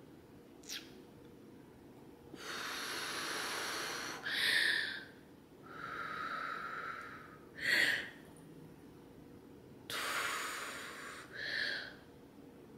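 A woman in labor breathing heavily through a contraction: three long, noisy breaths, each followed closely by a shorter, sharper one, repeating every three to four seconds.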